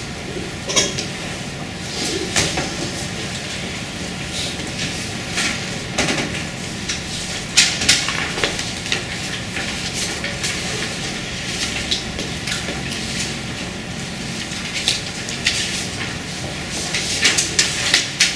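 Classroom noise: scattered light clicks, taps and clatter over a steady hum, with a cluster of sharper clicks near the end.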